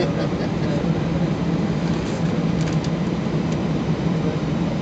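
Steady low cabin hum inside an Airbus airliner on the ground before takeoff, from its engines and air system, with a few faint ticks about two and a half seconds in.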